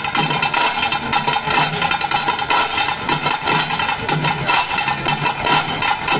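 Fast, unbroken drumming of the tase drums that accompany the Pili Nalike tiger dance, struck with sticks in a loud, dense beat.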